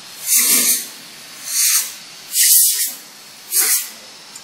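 Compressed-air blow gun on a hose, fired in four short loud blasts of hissing air, blowing out jaw crusher bearing housings.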